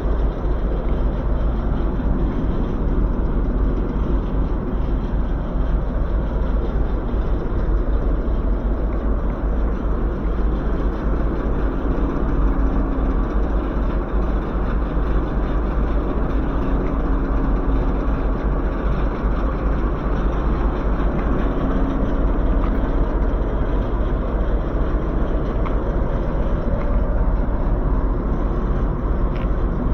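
A steady, unbroken rumble of a running railway vehicle.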